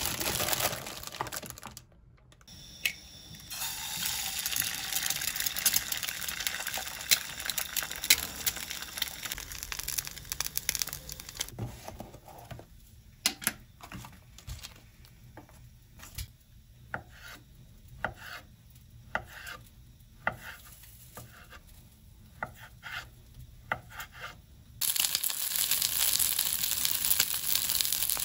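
Food sizzling as it fries in a pan. In the middle stretch the sizzle drops away and scattered clicks and knocks of utensils and dishes take over, and near the end the sizzle comes back strongly.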